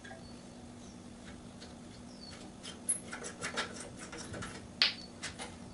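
Metal clicks, knocks and rattles from a push mower's handle being worked loose from its mount on the deck. They start about halfway through as a quick run of taps, with one sharper knock near the end.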